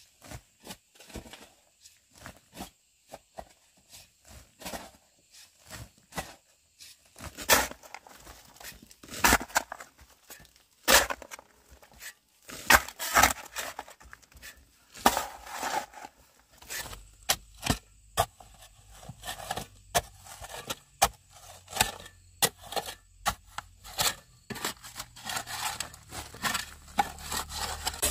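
Shovel and hoe digging into dry, flaky rock and earth: irregular scrapes and chopping strikes, with loose soil and stone chips being shifted and falling.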